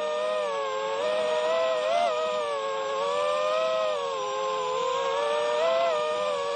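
Small high-revving model engine running steadily, a buzzing whine that wavers slightly up and down in pitch.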